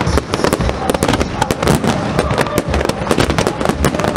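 Aerial firework shells bursting in quick succession: a dense, continuous run of sharp cracks, several a second, over deep booms.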